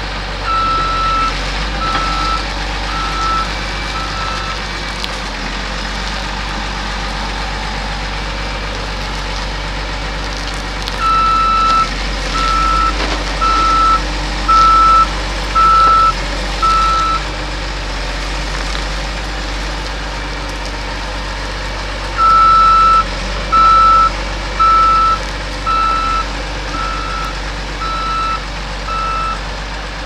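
CAT 930G wheel loader's backup alarm beeping about once a second, in three runs of four, six and seven beeps, over its diesel engine running steadily. The alarm signals the loader is in reverse.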